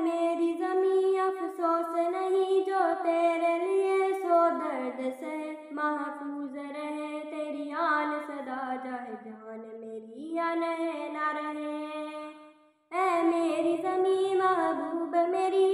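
A single high voice singing a slow melody of long held notes. It breaks off for a moment near the end, then starts the phrase again.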